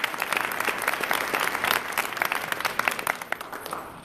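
Audience applauding, many hands clapping together; the clapping thins out and dies away near the end.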